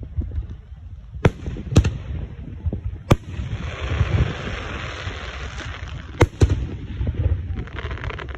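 Fireworks display: sharp bangs of aerial shells bursting, with two bangs close together a little after six seconds, and a stretch of hissing in the middle.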